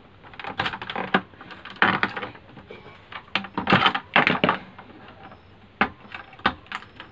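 Irregular clicks, knocks and plastic clatter of an LED TV's cable connectors being unplugged as its motherboard is disconnected from the display and lifted out, in uneven clusters with a couple of single knocks near the end.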